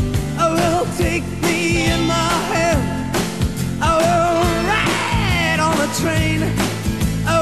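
Background song with singing over a steady drum beat.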